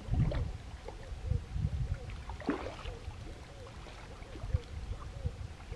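Small carp splashing and thrashing at the surface near the bank as it is reeled in, over low rumbling thumps, with a bigger splash about halfway through. A faint short call repeats about twice a second in the background.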